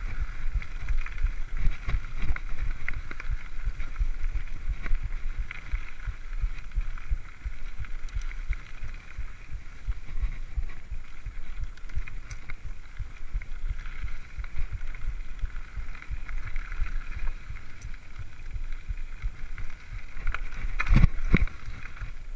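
Wind buffeting the microphone and the rattle of a mountain bike rolling over a dirt singletrack, with a sharp louder knock near the end.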